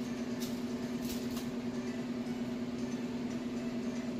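A steady background hum, one pitch with overtones, with three light clicks in the first second and a half.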